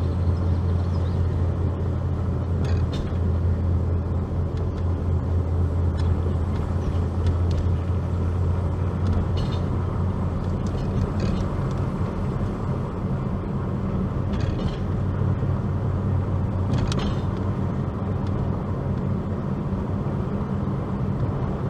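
A car driving at a steady speed: a low, even engine hum with road noise, and a few faint clicks here and there.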